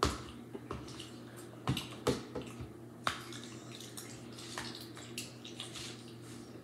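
A utensil clicking and scraping against a bowl while rice is eaten: irregular sharp taps, several in the first three seconds and lighter ones after.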